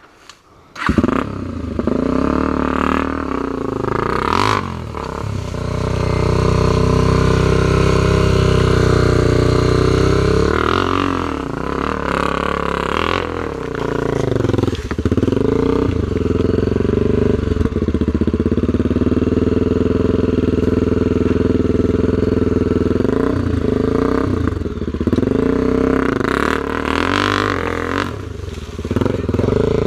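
Dirt bike engine starting loud about a second in and running hard, its revs rising and falling repeatedly as it works up a loose, rocky hill.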